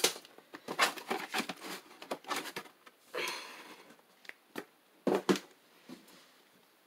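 Hands handling the unboxed box fan and its paper manual: a string of clicks, taps and short rustles, with louder scuffs about three and five seconds in.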